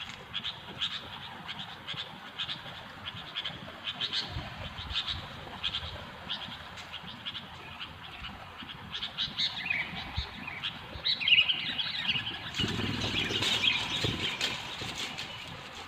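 Sooty-headed bulbuls calling in short, repeated chirps. The calls grow denser and louder near the end, over a low noise.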